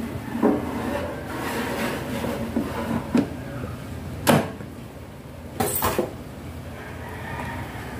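Plastic basket drawer of a GWEICH air fryer being slid into its housing, with scattered knocks, a louder clunk about four seconds in and a quick cluster of clicks a moment later as it is pushed home.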